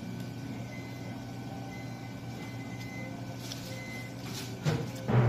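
Steady low mechanical hum of room machinery, with a few brief soft noises late on and a louder noise at the very end.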